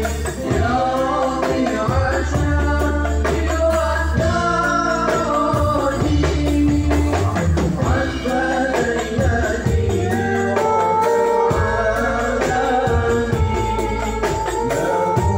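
A male singer sings a devotional song through a microphone over a small ensemble. Rebana frame drums beat a busy rhythm, with electric guitar and bass guitar under them.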